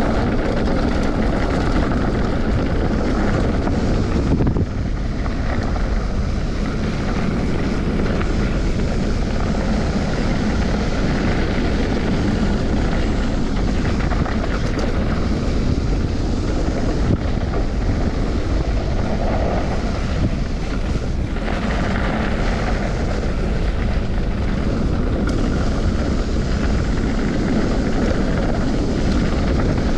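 Steady droning engine and road noise of a vehicle on the move, with wind rushing over the microphone.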